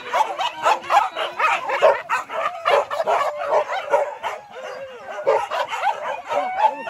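A pack of hunting dogs on a wild boar hunt yelping and barking in rapid, overlapping calls, with high-pitched yips and whines mixed in.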